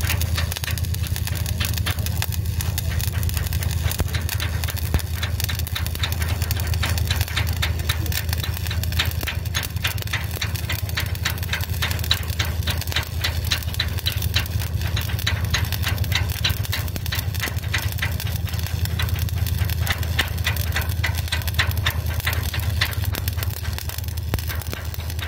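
Stick (shielded metal arc) welding overhead on steel plate: the arc crackles steadily as the electrode burns. Under it runs a steady low hum.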